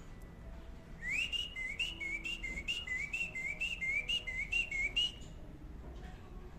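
Cockatiel whistling a quick run of about a dozen short, rising notes, starting about a second in and stopping about a second before the end.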